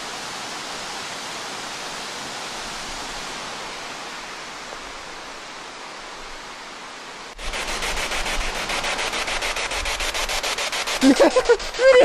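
Steady rushing noise of the waterfall. About seven seconds in, it switches abruptly to a spirit box sweeping through radio stations: rapid, even ticking of static many times a second, with brief voice-like fragments near the end.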